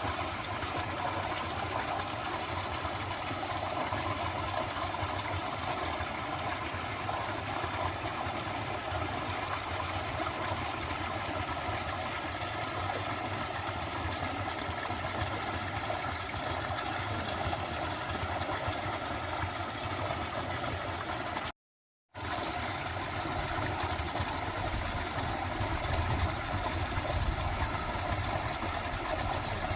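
A dense frog chorus trilling steadily. It cuts out to silence for about half a second roughly 22 seconds in, then resumes.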